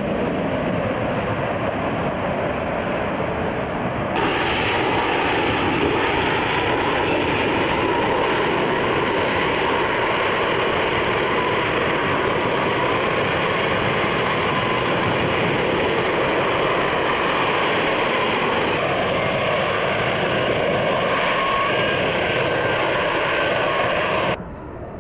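Loud, steady jet noise from an F-35 Lightning II's single F135 turbofan as the fighter flies low past the crowd. The sound changes abruptly about four seconds in and drops away sharply just before the end.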